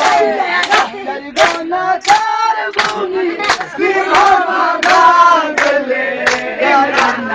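A group of voices singing a tarana, a praise song, with hand claps keeping a steady beat of about three claps every two seconds.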